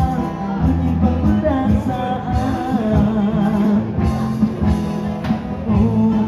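A man singing into a microphone over a small live band of keyboard and guitar, amplified through a PA, with a steady bass line underneath.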